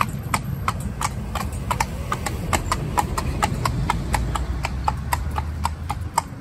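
A cob x trotter pony's hooves clip-clop on a tarmac road as she pulls a cart, in an even rhythm of about three to four hoofbeats a second.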